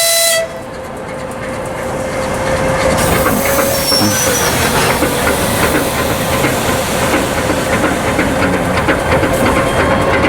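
2TE116 diesel locomotive pulling a suburban train away. Its diesel engines are running up under load with a steady whine, getting gradually louder over several seconds. A horn note cuts off about half a second in.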